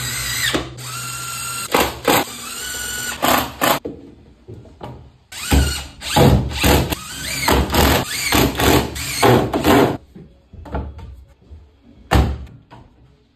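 Cordless drill-driver drilling into a laminate-faced board. Its motor whine rises during a steady run, then comes a quick series of short trigger bursts. A few knocks follow, with one loud knock near the end.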